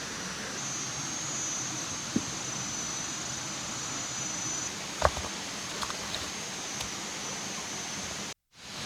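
Steady outdoor hiss with a thin high steady tone above it and a few sharp clicks and pops, the loudest about five seconds in. The sound drops out briefly near the end.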